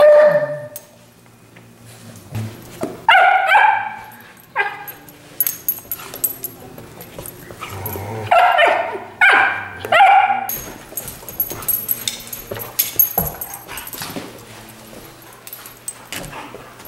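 A Chesapeake Bay Retriever puppy and a black-and-tan coonhound playing: short, high-pitched yips and barks come in clusters, right at the start, a few seconds in, and again around eight to ten seconds in, with quieter scuffling between them.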